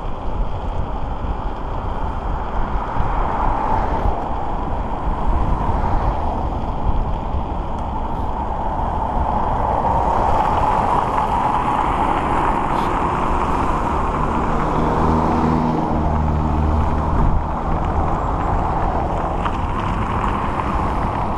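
Steady rush of air and tyre noise from a SpeedWay Mini 4 electric scooter riding along a city road among car traffic, with a car engine's lower hum joining about fourteen seconds in.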